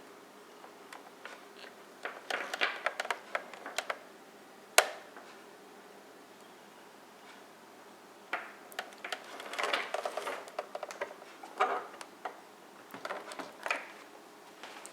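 Plastic wiring connectors and cables being handled and plugged into a car stereo head unit's harness: irregular bursts of light clicking and rattling, with one single sharp click about five seconds in.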